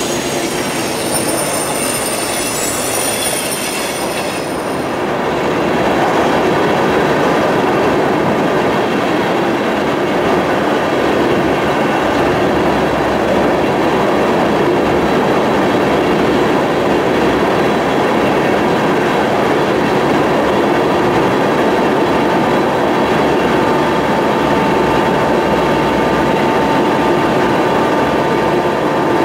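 Union Pacific crude-oil unit train's covered hoppers and tank cars rolling past on curved track: a steady, loud rumble of steel wheels on rail. High wheel squeal sounds in the first few seconds and fades out about five seconds in, and a steady ringing tone joins the rumble past the middle.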